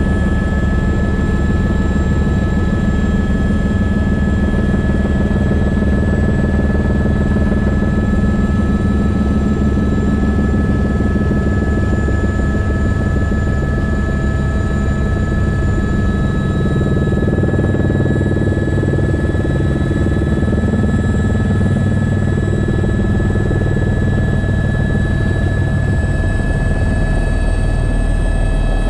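Helicopter engine and rotor noise heard from inside the cabin in flight: a loud steady drone with a constant high whine over it. The lowest rumble grows heavier near the end.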